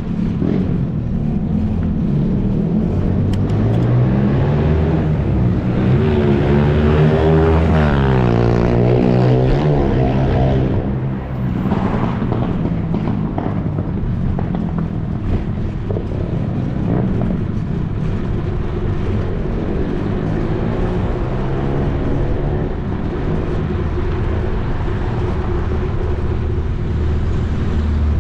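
Motor vehicle passing on the road alongside, its engine pitch sliding down and back up about six to ten seconds in. Underneath runs a steady low rumble of wind on the microphone of a camera moving along on a bicycle.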